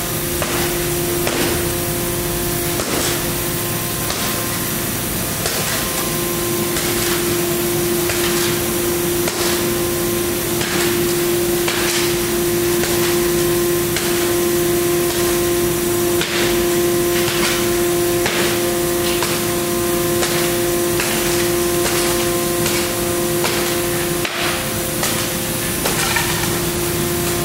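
Hammer blows striking a laminated security glass pane, roughly one a second, each a sharp crack on the already shattered glass. The pane has a tempered front and a heat-treated back sheet with a 1.52 mm interlayer, and it holds: it is hard to get through. A steady hum and hiss run underneath.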